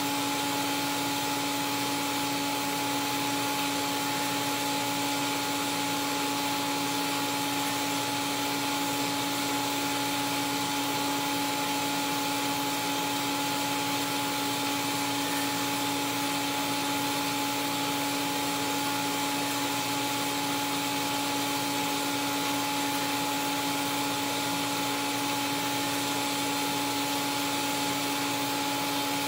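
TIG welding arc on a carbon steel pipe root pass, fed by laying the filler wire in the joint while the pipe turns in a rotator: a steady hiss with a constant hum.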